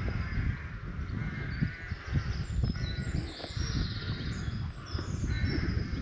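Crows cawing, several harsh calls a second or so apart, with small birds chirping higher up over a low rumble on the microphone.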